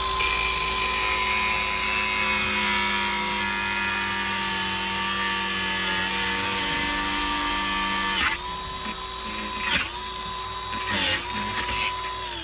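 DeWalt angle grinder running at full speed, its wheel grinding into a padlock shackle: a steady high whine over a harsh grinding hiss. In the last few seconds the motor's pitch dips briefly three times and recovers.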